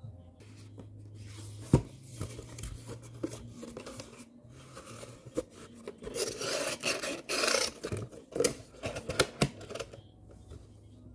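Paper file box being handled and folded: rustling and scraping of stiff paper, broken by sharp clicks and taps, with a longer stretch of rustling past the middle.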